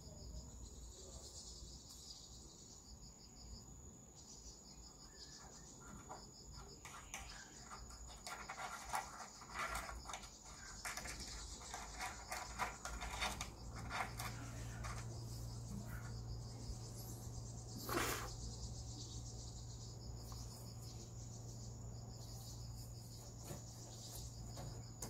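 Crickets trilling steadily in a high, pulsing chorus. Scattered light scratches and taps come through between about 6 and 13 seconds in, a short louder scrape comes at about 18 seconds, and a low steady hum sets in at about 14 seconds.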